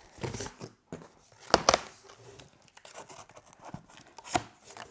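Cardboard shipping box being opened by hand: tape tearing and cardboard rustling, with sharp knocks of the cardboard about a second and a half in and again near the end.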